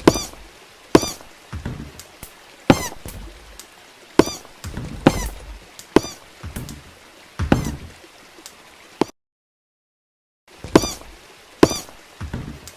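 A looped heavy footsteps sound effect: slow, evenly spaced steps, each a sharp click followed by a low thud, about one step every second and a half. It breaks off into dead silence for about a second and a half near the end, then starts again.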